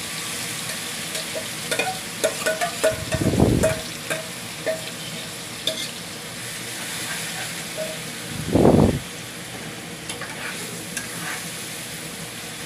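Marinated chicken sizzling as it hits hot mustard oil in a non-stick kadai, with a spatula clicking and scraping against the pan while the pieces are stirred. Two dull thumps stand out, about three and a half and eight and a half seconds in.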